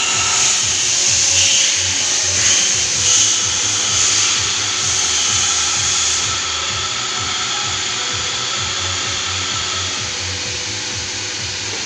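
Steady mechanical noise of machinery running, with a faint steady whine, easing slightly about halfway through.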